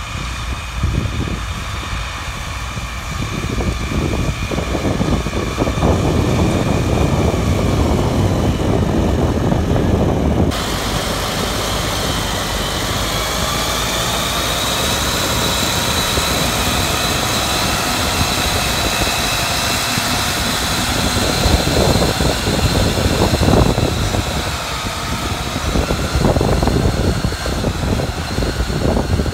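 Zetor 9540 Turbo tractor's turbocharged diesel engine working steadily under load while pulling a disc harrow-seeder through tilled soil. It grows louder as the tractor comes close, and a high steady whine sits over the engine in the second part.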